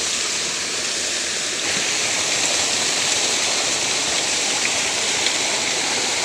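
Waterfall rushing: a steady, dense roar of falling water that gets a little louder about two seconds in.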